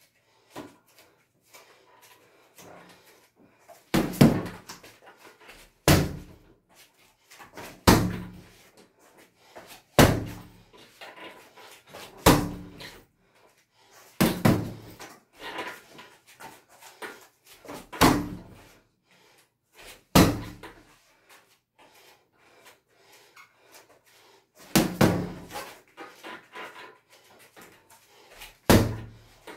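Strikes landing on a hanging heavy punching bag: single hard thuds about every two seconds, with a pause of a few seconds about two-thirds of the way through.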